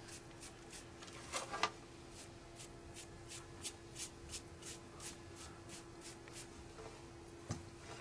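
Light brush strokes of liquid grit hockey tape being painted onto the taped blade of a hockey stick: quick scratchy strokes, about three a second, with two louder ones about a second and a half in, over a faint steady hum.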